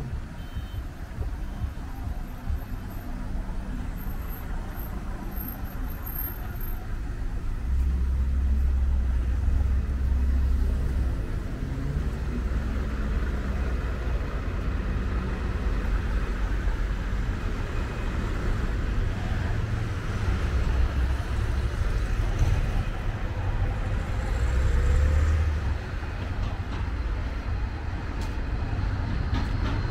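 Street traffic: motor vehicles passing, a low rumble that swells louder several times as they go by.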